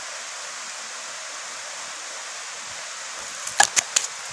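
Steady rush of river water from a low waterfall, with a quick run of sharp clicks about three and a half seconds in.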